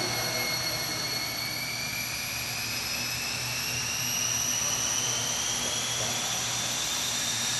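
Fancy Foam Mini Elipse indoor foam RC plane in flight, its small electric motor and propeller giving a steady high-pitched whine. The pitch rises slowly from about two seconds in.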